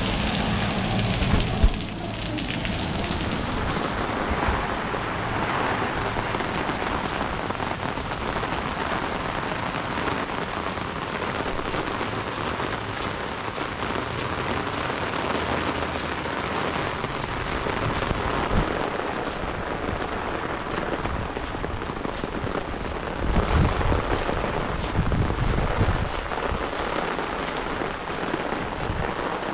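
Heavy downpour falling steadily on a lawn, a dense even hiss of rain, with a few low rumbles near the start and again about three-quarters of the way through.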